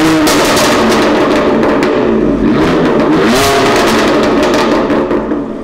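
BMW M4's twin-turbo straight-six revved hard at standstill inside a tunnel, rising and falling in pitch twice, with a dense crackle of exhaust pops and bangs throughout.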